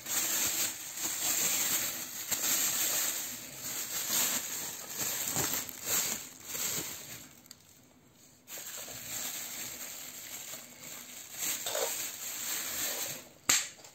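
Thin plastic bag rustling and crinkling as it is handled, with a quieter stretch in the middle and a sharp click near the end.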